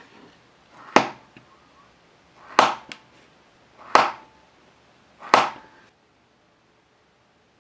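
Hobby knife blade pressed down through thin walnut strips onto a cutting mat, four sharp chopping cuts about a second and a half apart, with a small extra click after the second.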